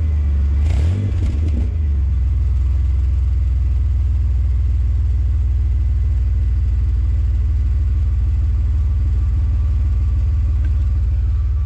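2002 Chevrolet Blazer's 4.3-litre V6 running through a freshly fitted aftermarket rear muffler: a quick rev about a second in, then a steady low idle. Loud exhaust note from the new muffler.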